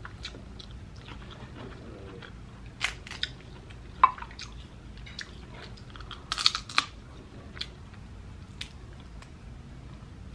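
Close-up mukbang eating sounds: a person chewing seafood boil, with wet smacking and scattered crunches and clicks. The sharpest crack comes about four seconds in, and a short cluster of crunches about six and a half seconds in.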